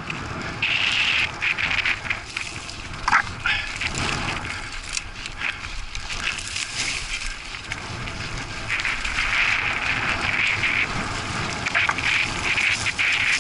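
Mountain bike descending a loose chalk trail. Steady tyre noise over chalk and grit, with frequent knocks and rattles from the bike over bumps.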